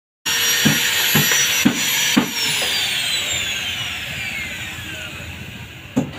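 Electric angle grinder running with a high steady whine, then switched off about two seconds in, its whine falling steadily as the disc spins down over the next three seconds. Sharp knocks come about twice a second while it runs at speed, and again near the end.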